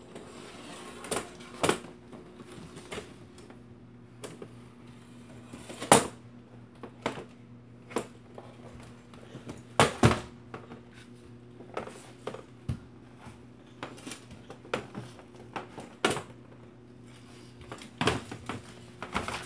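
Folding saucer chair's metal frame knocking and clattering on a wooden floor as a toddler drags it along, in irregular clacks with scraping between them. The loudest knocks come about six and ten seconds in.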